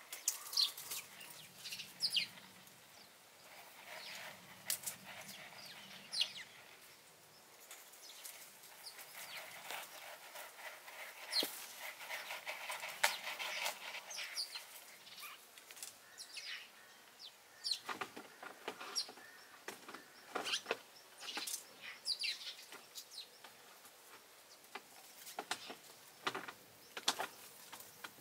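Small birds chirping now and then in short, high, falling calls. Between them comes the scratchy rustle of a kitten digging in a tray of sandy litter, busiest about halfway through.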